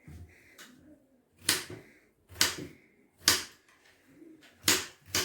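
Knife striking a cutting board while cutting apple: five sharp knocks, roughly one a second, from about one and a half seconds in.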